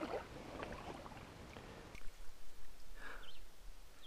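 Faint outdoor background noise with a few light clicks and knocks, and a couple of short high chirps about three seconds in.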